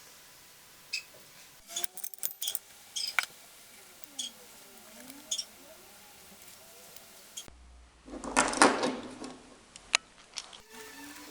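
Metal tools and engine parts clinking and knocking in a series of sharp, scattered clicks. A loud rushing burst lasts about a second, a little past two-thirds of the way in, followed by a few more clicks.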